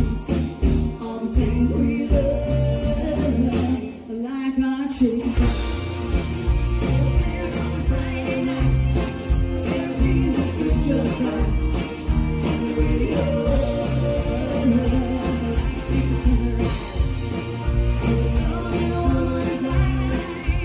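Country band playing live through a PA: drums, bass-heavy electric and acoustic guitars, keyboard and fiddle with a steady beat, and singing over it. The drums and low end drop out briefly about four seconds in, then the full band comes back.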